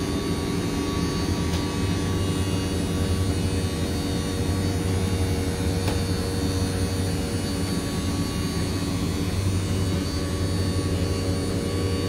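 12-volt electric slide-out motor of a travel trailer running steadily as the slide room moves out, a continuous even hum.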